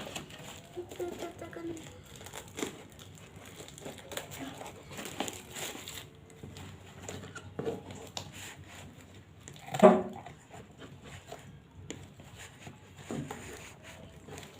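Plastic packaging crinkling and rustling in short, irregular bursts as a parcel is handled and opened. There is one brief, louder vocal sound about ten seconds in.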